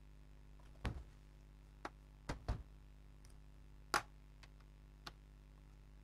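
About six sharp knocks and clicks of an HP ProBook 11 G2 laptop's plastic case being turned over and set down on a silicone repair mat, with a screwdriver laid on the case. The loudest knock comes about four seconds in, over a faint steady hum.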